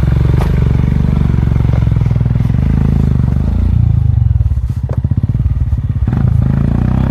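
Royal Enfield Himalayan's single-cylinder engine running on an off-road trail. About four and a half seconds in it drops to a slow, uneven chug at low revs, then picks up again about a second and a half later. A few knocks and rattles sound along the way.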